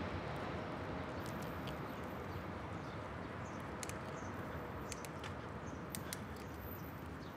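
A loud passing train's steady rumble slowly fading away, with a few faint scattered clicks over it.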